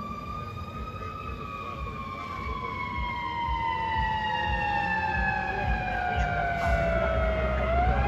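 Fire engine siren sounding one tone that slowly falls in pitch and grows louder, then turns and rises again near the end.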